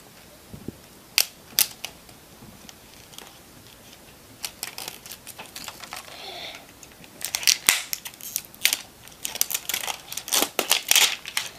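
Plastic packaging crackling and clicking in irregular bursts as a hard-to-open LOL Surprise ball layer is picked and pulled at. The crackling is densest near the end.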